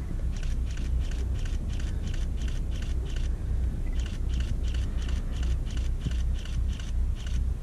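Power boat's engine running with a steady low rumble. Over it comes a fast, even ticking of about three ticks a second, which breaks off briefly about halfway through.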